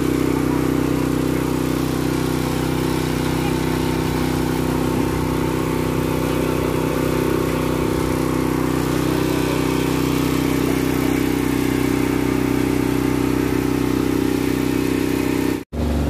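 Small engine-driven water pump on a water tanker truck running steadily at a constant speed while the tank is filled with water. Near the end the sound breaks off abruptly and a deeper hum takes over.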